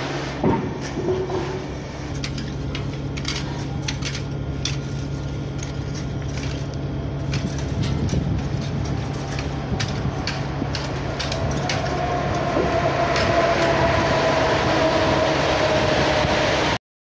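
PKP Intercity passenger train hauled by a Newag Griffin EU160 electric locomotive running through the station. It makes a steady low hum with scattered wheel clicks, grows louder over the last few seconds, and a slowly falling whine comes in before the sound cuts off abruptly near the end.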